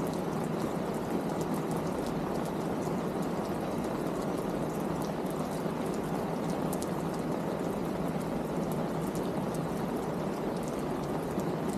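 Steady rain falling, an even hiss with fine scattered drop ticks.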